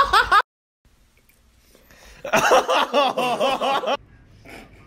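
Laughter in quick rhythmic pulses: a burst at the very start that cuts off abruptly, then, after about two seconds of near silence, another burst of laughter lasting under two seconds that also stops suddenly.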